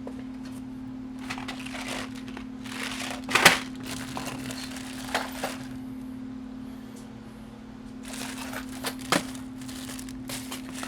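Rustling and crinkling of small-parts packaging with scattered sharp clicks, as small stainless bolts and washers are sorted through, the sharpest click about three and a half seconds in. A steady low hum runs underneath.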